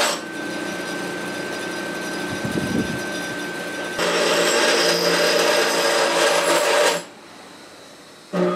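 Bench grinder grinding a steel trigger guard blank to shape. A lighter pass with a steady whine runs for about four seconds, then the grinding grows louder for about three seconds and stops abruptly. It starts up loud again right at the end.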